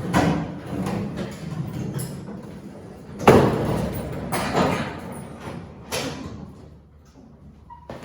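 Heavy thuds and knocks, with scraping in between, of a steel pickup truck bed being worked off its frame; the loudest knock comes about three seconds in.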